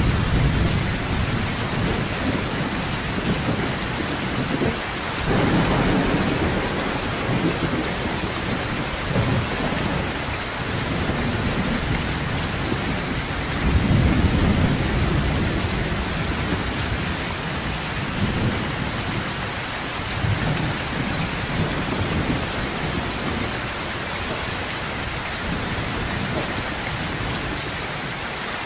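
Heavy rain falling steadily on a sheet-metal roof, with thunder rumbling low several times, loudest about fourteen seconds in.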